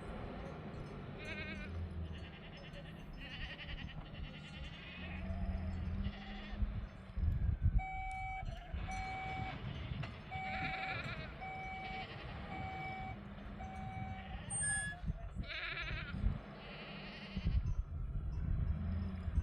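Sheep bleating again and again. Six short, evenly spaced beeps sound in the middle, about one a second.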